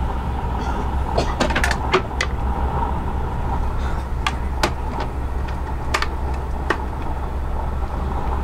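Inside a moving SJ InterCity passenger coach: the steady low rumble of the running gear with a constant hum, broken by scattered sharp clicks and creaks, a quick cluster about a second in and a few single ones later.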